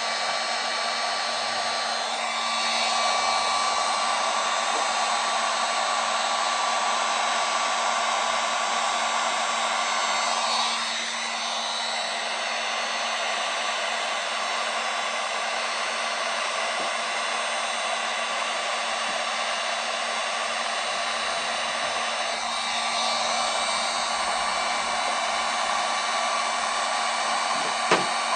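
Digital heat gun blowing steadily while it heats the aluminum panel under a light pull from the squeeze puller. A single short knock comes near the end.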